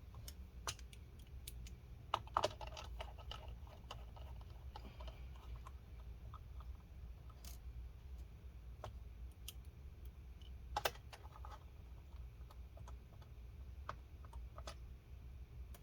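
Scattered small clicks and taps of a screwdriver, screws and handling against a laptop's plastic case during reassembly, with a louder cluster of knocks about two seconds in and another near eleven seconds, over a steady low hum.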